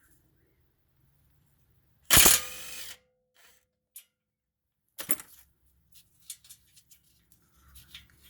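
Hand tools working on a car's steering tie rod: a loud metallic clank about two seconds in that rings briefly, a click, a second knock about five seconds in, then light clicking.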